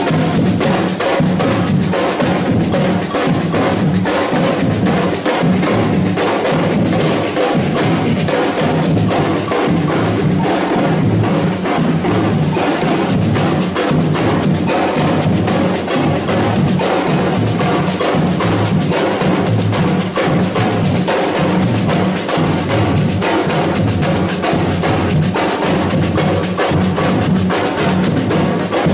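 A batucada band playing a continuous drum rhythm, with bass drums, snare drums and a sharp clicking wood-block-like part.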